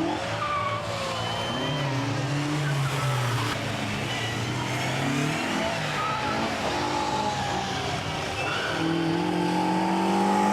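Classic rally cars' engines revving, several engine notes overlapping and rising and falling in pitch, loudest near the end.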